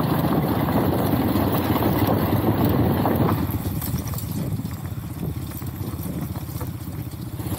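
Motorbike engine running with road noise while riding. The sound is fuller and louder for about the first three seconds, then drops and turns duller until near the end.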